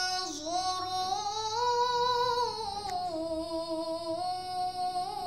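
A boy's voice chanting the Quran in melodic tilawah style, holding one long unbroken note that rises, then falls back and wavers.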